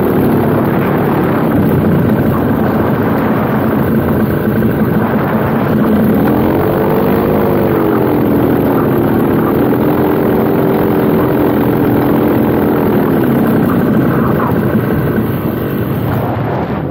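Paramotor engine and propeller running in flight with wind on the microphone; the engine note rises and falls as the throttle is worked on the approach to land, and the engine drops away near the end.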